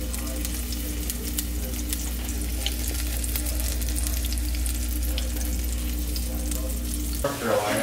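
A sauce sizzling and crackling in a saucepan as it is stirred with metal tongs, over a steady low hum. The sizzling cuts off just before the end.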